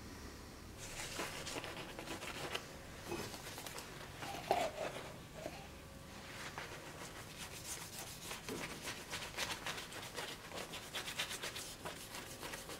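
Quick, irregular scratchy rubbing strokes as a gloved hand scrubs a forged steel axe head clamped in a vise.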